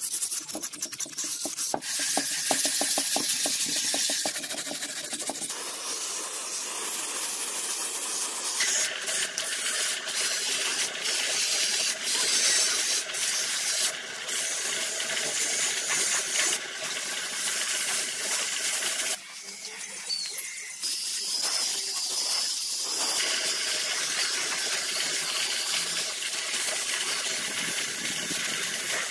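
Sandpaper rubbing on a plastic motorcycle body panel in short strokes at first, then a gravity-feed air spray gun hissing in long bursts with brief breaks as it sprays paint onto the panels.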